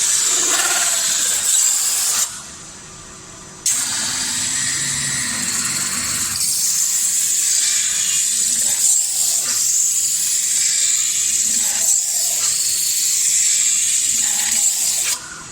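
Metal-spinning lathe running, with the spinning tool pressed against the revolving sheet metal to form a bowl: a steady hiss with a high whine and some scraping. The sound drops off abruptly twice, near the start and near the end.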